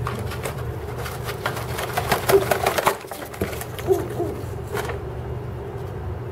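Rock pigeon sitting on her egg giving a few short, low hoot-like grunts as a hand touches her. About two seconds in there is a burst of rustling from feathers and nest twigs.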